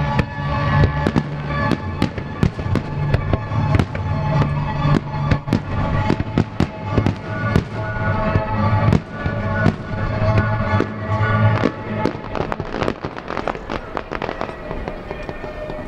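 Aerial fireworks shells bursting in quick succession, a steady string of sharp bangs that comes thickest near the end, with music playing underneath.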